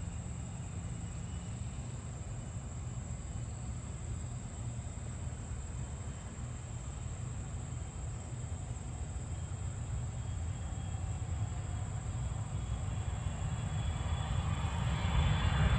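Distant Gulfstream IV business jet on its takeoff roll, its twin Rolls-Royce Tay turbofans giving a steady low rumble. The rumble and a rising hiss grow louder over the last few seconds as the jet comes down the runway.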